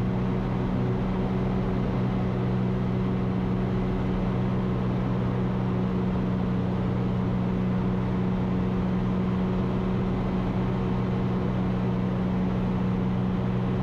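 Ikarus C42 light aircraft's engine and propeller droning steadily at climb power, heard from inside the cockpit.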